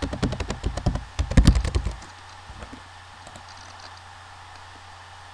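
Typing on a computer keyboard: a quick run of keystrokes lasting about two seconds, then it stops.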